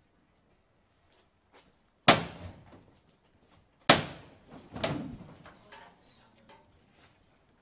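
Two loud, sharp knocks about two seconds apart, then a softer knock a second later: the metal knocker (llamador) of a Holy Week procession float, struck by the foreman to call the bearers to lift the stopped float.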